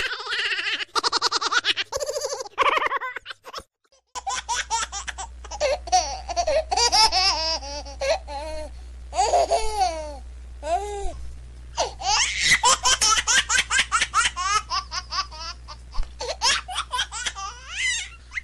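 Laughter in quick repeated bursts, much of it high-pitched like a baby's giggling, breaking off briefly about four seconds in and then going on over a steady low hum.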